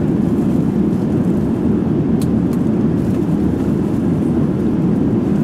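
Steady low roar of a Boeing airliner's cabin in flight, the engines and airflow heard from a passenger seat. Two faint clicks come a little after two seconds in.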